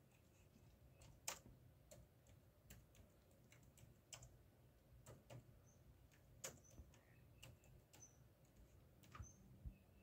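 Near silence with faint, irregular clicks and ticks, the loudest about a second in, and a few very brief high chirps in the second half.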